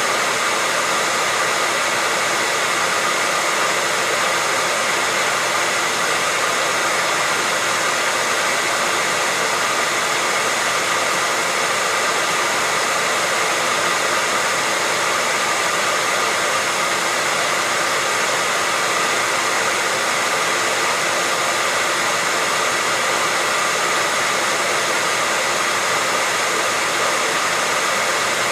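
Hair dryer running steadily, a constant airy rush of fan and blown air with a faint steady whine, with no change in speed or pitch.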